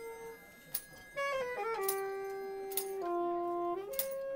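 Live music from a small band: a melody of long held notes that steps down through the middle and jumps back up near the end, over sharp percussive hits about once a second.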